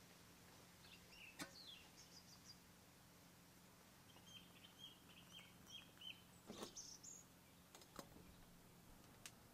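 Very quiet outdoor background: faint bird chirps come and go, including a run of short repeated chirps in the middle, over a low steady hum, with a few soft clicks.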